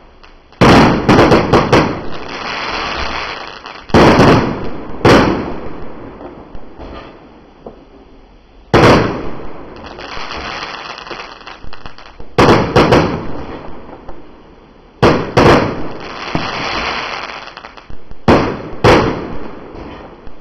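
Low-noise 1.4G consumer fireworks going off: clusters of sharp bangs every few seconds, each followed by a dense hiss that fades away over a second or two.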